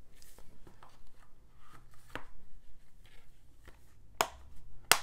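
Plastic Blu-ray cases being handled on a desk: light rustling and soft taps, then two sharp plastic clicks near the end, the second the louder.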